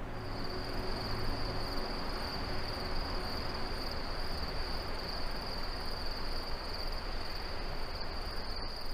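Crickets trilling in one unbroken, high-pitched trill over a soft, steady hiss.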